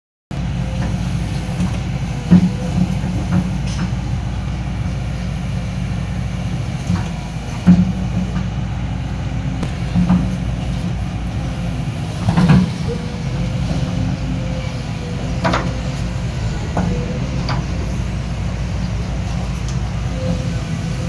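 Excavator's diesel engine running steadily under working load, with a faint on-and-off hydraulic whine and occasional sharp clanks and thuds from the machine's work. The loudest knocks come about 2, 8 and 12 seconds in.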